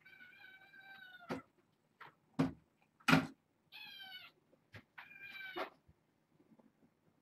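Two-month-old kittens meowing: three high-pitched mews, the first the longest, at about one second. Three short, sharp knocks fall between the first and second mews, and two of them, about two and a half and three seconds in, are the loudest sounds.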